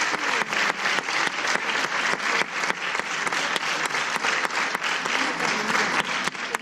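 Audience applauding steadily, with many hands clapping densely and without a break.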